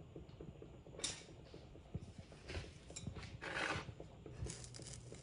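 Scattered light clicks and knocks of kitchen handling at the stove, with a brief hiss about three and a half seconds in.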